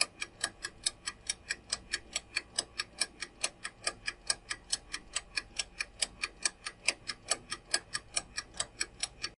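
Countdown-timer ticking sound effect, like a clock: quick, even ticks, a little over four a second, then it stops.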